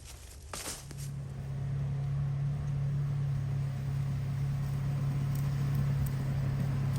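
A small engine running steadily at constant speed, setting in about a second in.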